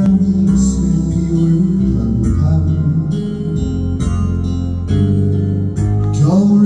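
A live band playing a pop song in rehearsal, with an instrumental passage carried by a prominent electric bass line and a rising slide about six seconds in.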